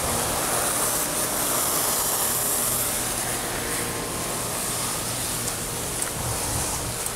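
Outdoor air-conditioning condenser units running: a steady low hum with a broad fan whoosh that eases off slightly partway through.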